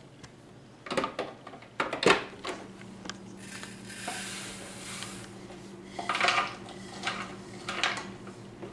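Ingredients are tipped from small bowls into a plastic food processor bowl. There are two sharp knocks of dishes early, a steady hiss of seeds and nuts pouring in for about two seconds in the middle, then a few more clinks and clatters of the bowls against the processor near the end.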